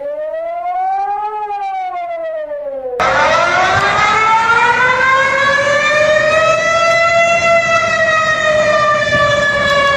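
Warning siren wails in two back-to-back clips. The first glides up and back down in pitch over about three seconds. Then a louder siren cuts in abruptly and slowly rises, leveling off and sagging slightly near the end.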